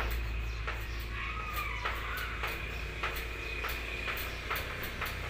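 Chalk writing on a chalkboard: irregular taps and scratches of handwriting strokes, over a steady low hum.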